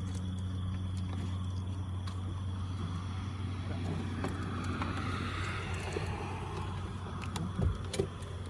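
Car engine idling steadily with a low, even hum, and two short thumps near the end.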